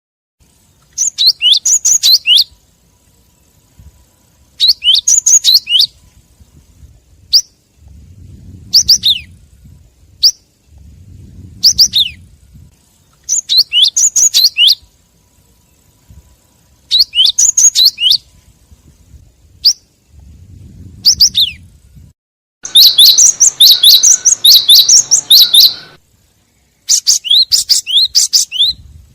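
Cinereous tit (gelatik batu) calls from a lure recording: short bursts of rapid high chirps about every three to four seconds, with a longer, denser run of chirping a little past two-thirds of the way through.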